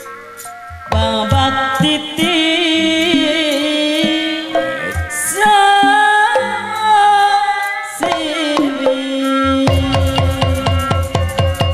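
Sundanese jaipongan music played live: a female sinden sings long, wavering phrases with heavy vibrato over gamelan and hand drums. Near the end the drums break into a quick run of strokes.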